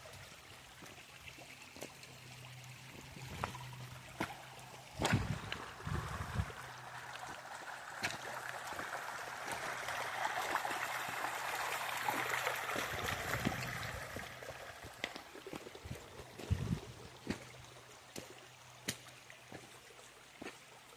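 Shallow creek water trickling and gurgling over rocks, growing louder for several seconds in the middle, with scattered thumps and splashes of footsteps wading through it.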